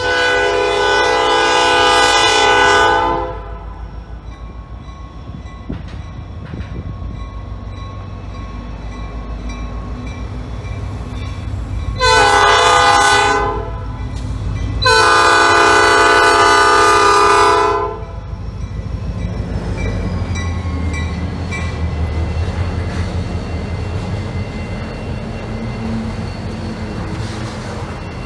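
Norfolk Southern diesel freight locomotive's air horn sounding three blasts for the grade crossing: long, short, long. The locomotive's engine rumble and the freight cars rolling over the rail bridge follow as the train passes.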